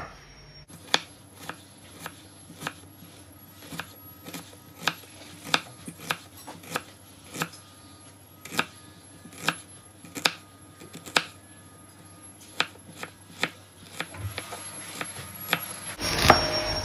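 A knife slicing an onion: a run of sharp, irregular chopping knocks, about one or two a second.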